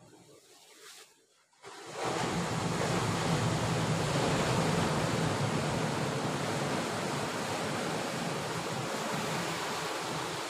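Sea surf breaking and washing over shore rocks, mixed with wind buffeting the microphone; after a quiet first two seconds the noise comes in suddenly and stays steady and loud.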